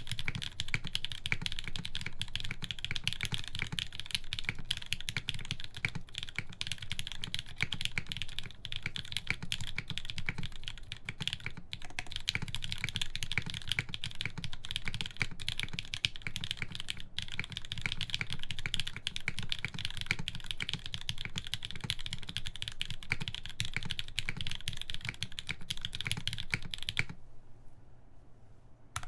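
Continuous typing on a TGR x GAF 910 mechanical keyboard with lubed Gateron Hippo switches, an aluminium full plate and KeyKobo keycaps: a dense run of keystrokes that pauses for about two seconds near the end before typing starts again.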